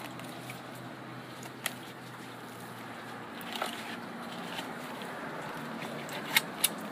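Knife cutting a gag grouper fillet away from the frame. A few sharp clicks come through, the loudest two in quick succession near the end, over a steady low hum.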